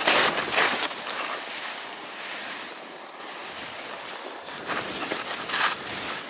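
Skis hissing and scraping over snow through turns, with wind on the microphone; louder swooshes at the start and again about five seconds in.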